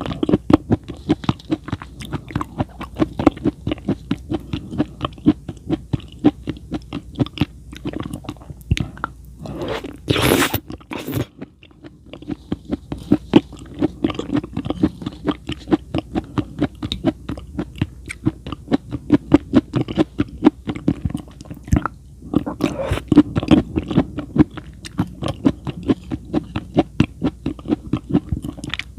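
Close-miked chewing and crunching of food: a steady run of rapid chews. About ten seconds in there is a brief louder noise, then a short pause before the chewing resumes.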